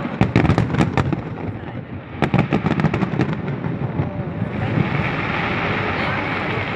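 Fireworks display bursting in quick runs of sharp bangs, two clusters in the first three and a half seconds, followed by a steady noisy wash from about four and a half seconds in.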